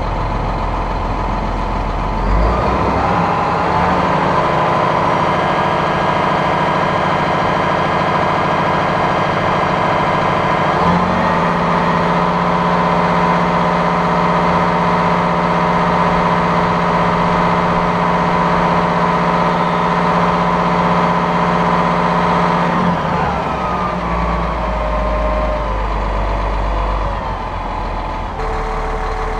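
Massey Ferguson 7624's 7.4-litre AGCO Power diesel engine running. It revs up in two steps, a few seconds in and again about eleven seconds in, holds at the higher speed, then drops back about three-quarters of the way through.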